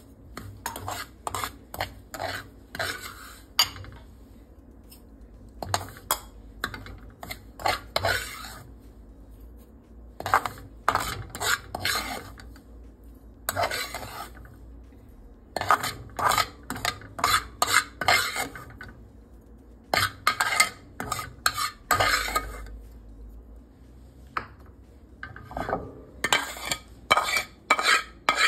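Metal spatula scraping and stirring dry-roasting semolina (rava) in a metal pan, in bursts of quick scrapes and taps with short pauses between.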